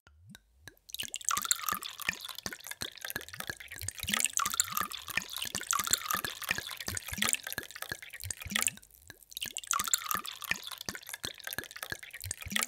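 Water poured in a thin stream into a glass tumbler, splashing and bubbling steadily with many small rising plops. It starts about a second in and thins briefly about nine seconds in.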